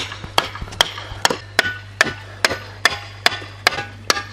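Hammer driving a wooden wedge in alongside a steel star picket: a steady run of sharp blows, about two and a half a second, each with a brief ring.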